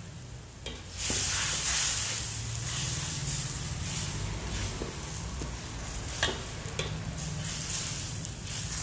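Pancit bihon and its sauce sizzling and bubbling in a hot wok as it reduces, the hiss jumping up suddenly about a second in, while a metal ladle stirs it with a few clinks against the wok.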